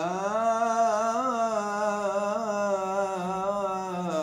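A man's voice chanting Torah cantillation in the Constantine (Algerian Jewish) tradition, holding one long melismatic note on a single syllable. The pitch lifts at the start and wavers gently up and down before settling steady.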